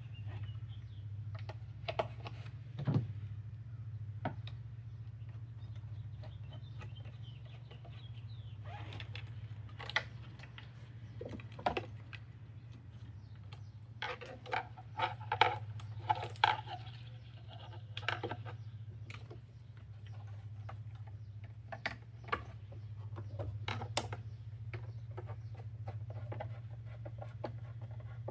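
Scattered clicks, knocks and rattles of hand tools and plastic air-intake parts being handled and refitted, busiest around the middle, over a steady low hum.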